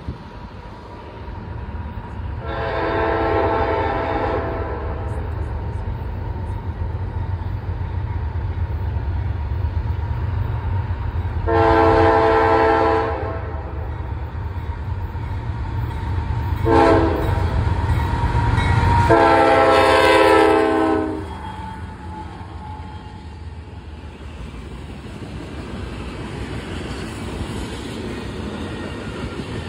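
CSX freight diesel locomotive's air horn blowing four chords, long, long, short, long, the standard grade-crossing warning. A deep engine rumble runs beneath and drops away after the last blast, leaving a softer steady rolling noise of the passing train.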